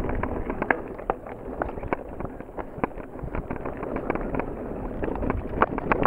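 Mountain bike running down a rough, rocky dirt trail: tyres crunching over dirt and stones under a constant rapid clatter and knocking of the bike's frame, chain and suspension over the bumps. The knocking is busiest at the start, eases off in the middle and picks up again near the end.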